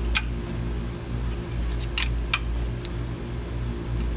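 A few sharp metallic clinks from a lug wrench working the wheel's lug nuts as they are run down snug, over a steady low hum.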